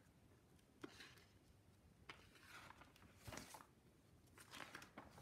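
Faint paper rustles and soft taps of a picture book's cover being opened and its pages turned, a few brief sounds spread out among near silence.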